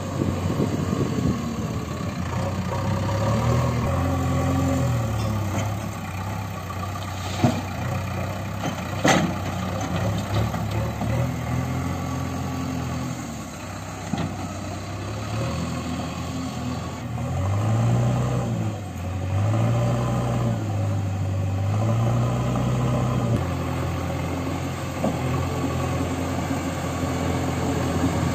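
JCB 3DX backhoe loader's diesel engine running and revving up and down several times as the machine drives and manoeuvres, most often in the second half. Two sharp knocks about seven and nine seconds in.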